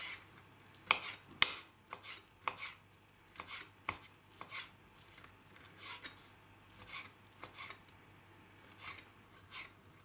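Small knife cutting boiled chicken breast into small cubes on a wooden cutting board: irregular taps of the blade on the board, the two sharpest about a second and a second and a half in.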